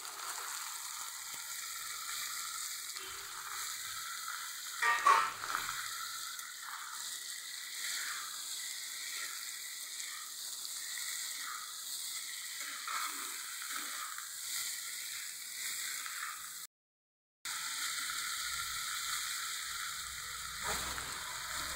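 Sliced bitter gourd and potato sizzling in hot mustard oil in a kadhai, stirred now and then with a long-handled spatula, with one loud scrape about five seconds in. The sound cuts out completely for a moment near the end.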